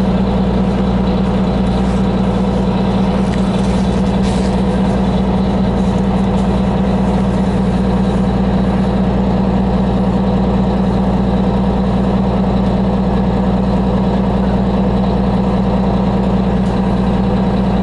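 Detroit Diesel 6V92TA two-stroke V6 diesel of a 1990 MCI Classic transit bus running steadily, heard from inside the passenger cabin. It is a loud, even drone that holds one pitch throughout.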